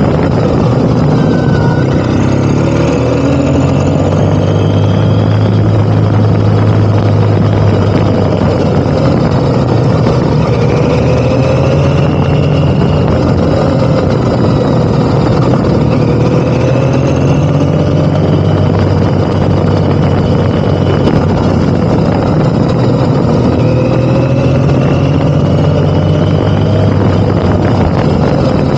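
Motorcycle engine running under way, its pitch rising and dropping back several times as it accelerates and shifts, under a steady rush of wind.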